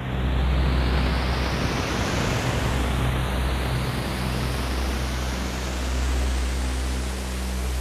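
Sci-fi spaceship engine sound effect: a steady rushing noise over a deep hum, growing brighter and hissier as it goes.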